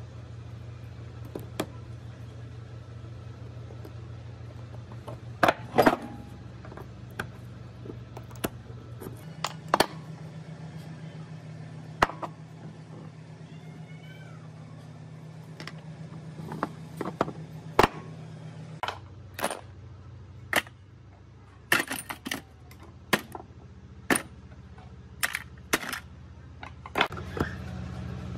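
Small steel parts of a hammer drill's tool holder clinking and clicking as they are taken apart by hand with circlip pliers, including a retaining ring and a spring: scattered sharp metallic clinks, more frequent in the second half. A steady low hum runs underneath and shifts in pitch twice.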